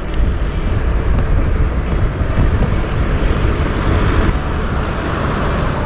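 Wind buffeting the microphone on a moving bicycle: a steady low rumble, with a rushing hiss that swells from about halfway through to near the end.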